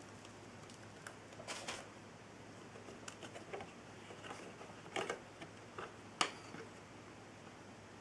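Scattered light plastic clicks and knocks as the clear dust cup and filter of a Bissell Lift-Off Revolution Pet bagless upright vacuum are handled and taken apart, the sharpest click a little past six seconds in.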